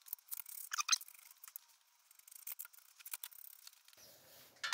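Faint light clicks and metal clinks of bolts and a thin steel adaptor plate being handled and fitted against an engine block, with a small cluster of clinks about a second in and then only sparse ticks.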